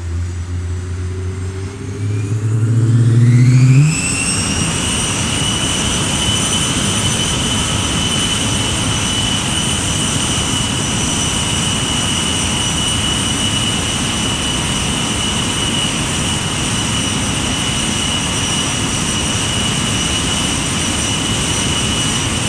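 Jet engine starting up. A low hum climbs in steps for the first four seconds while a high whine rises. The whine then levels off into a steady high-pitched whine over a dense roar as the engine settles at a constant speed.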